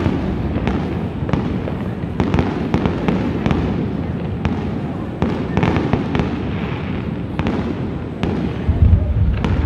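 Fireworks display: an irregular run of sharp bangs and crackles from aerial shells over steady low background noise, with a heavier deep boom near the end.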